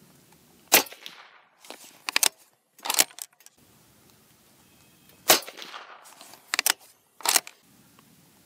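Two suppressed shots from a Savage Axis bolt-action rifle firing subsonic .300 Blackout (Fort Scott 190-grain TUI), about four and a half seconds apart. Each shot has a short ringing tail, and a second or so after each one the bolt is worked with a quick series of metallic clacks.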